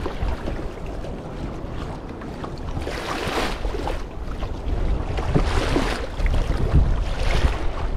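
Sea water sloshing and lapping around a kayak, with wind buffeting the microphone. The water noise swells up a few times.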